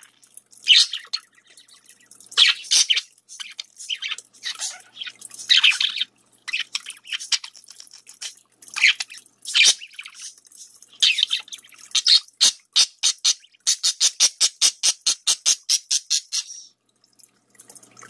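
Budgerigar chirping and squawking in short, sharp, high-pitched calls, speeding up into a fast even run of about seven calls a second near the end.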